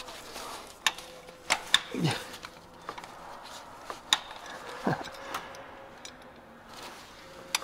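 Ratchet and socket clicking and clinking against the engine-turning tool as it is worked by hand to bar the diesel engine over, in a handful of separate sharp metal clicks. Two short sounds falling in pitch come in between, about two and five seconds in.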